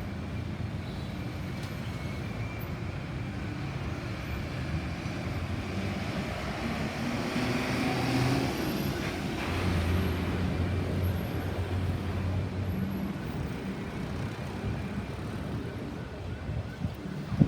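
Road traffic: vehicle engines and tyre noise, with one vehicle passing close about halfway through and a heavy engine running low and steady just after.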